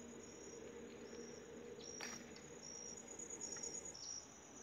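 Faint insect chirping: short high-pitched trills repeating about once a second, with a single sharp click about two seconds in.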